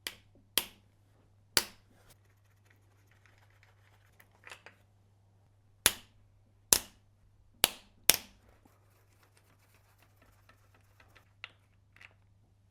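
About seven sharp metallic clicks and knocks at irregular intervals, with a few fainter taps between them, from hand tools working the triple-square bolts on the timing chain guides of an Audi 4.2 FSI V8.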